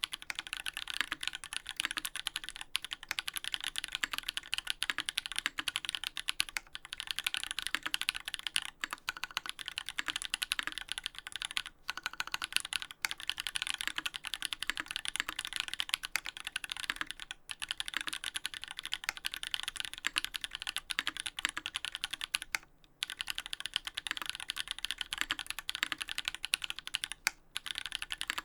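Steady fast typing on a Duck Orion V3 custom mechanical keyboard with lubed Holy Panda tactile switches on an FR4 plate and GMK keycaps: a dense stream of key strokes with a few brief pauses.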